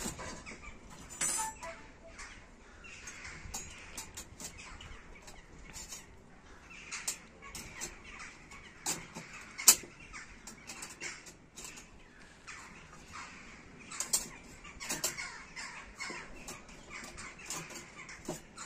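Thin metal panels of a folding portable camp stove clicking and clinking as they are handled and slotted together, with one sharp metallic clack about ten seconds in.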